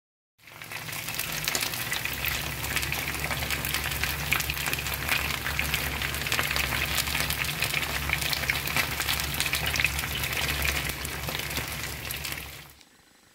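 Chicken wings and drumsticks frying in a pan, a dense, steady sizzle thick with fine crackles of spitting fat, over a low steady hum. It starts about half a second in and cuts off abruptly shortly before the end.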